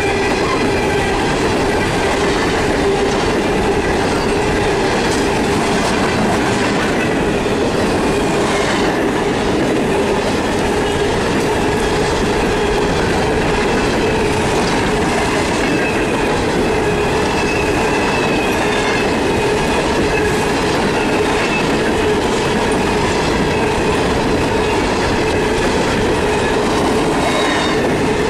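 Freight train of steel coal hopper cars rolling past at speed: a steady rumble of wheels on rail with clickety-clack over the rail joints.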